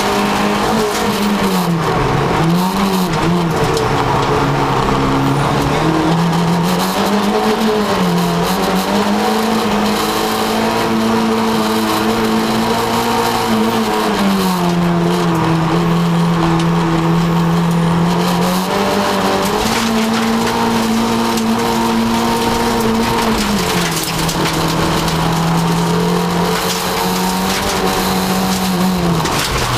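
VW Polo rally car's engine at full effort, heard from inside the cabin. The engine note holds steady for a few seconds at a time, then drops and climbs again about half a dozen times as the car is driven hard through the stage.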